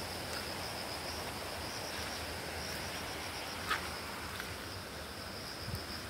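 Steady, high-pitched insect chorus buzzing without a break, over a faint even hiss, with one short click a little past halfway.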